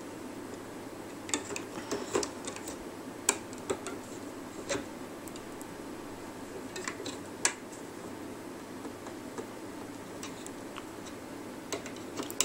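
Scattered small clicks and taps of a plastic hook against the plastic pegs of a rubber-band loom as rubber bands are hooked and pulled over. The clicks come irregularly, about ten of them, several close together in the first five seconds, a pair around seven seconds in and another near the end.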